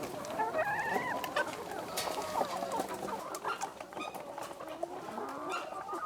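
A flock of hens clucking, with many short calls overlapping one another.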